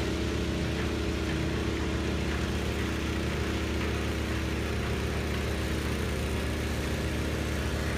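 An engine idling steadily, a constant low hum with hiss over it.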